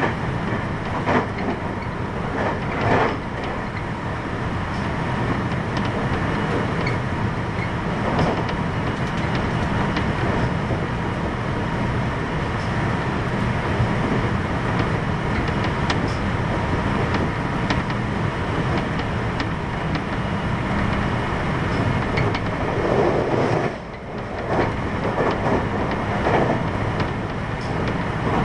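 JR West 521 series electric train with Toshiba IGBT inverter drive running at speed, heard from inside the motor car: a steady rumble of wheels and motors with occasional rail-joint clicks. The noise dips briefly about 24 seconds in.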